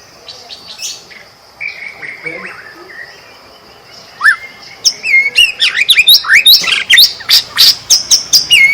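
White-rumped shama singing: soft, scattered whistled phrases at first, then from about four seconds in a loud, fast run of sharp notes and whistles, the bird in full song.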